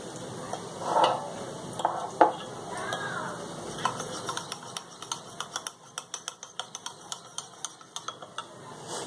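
Metal spoon stirring honey into tulsi leaf juice in a ceramic cup: a few separate knocks at first, then quick, even clinks of the spoon against the cup's sides, about four a second.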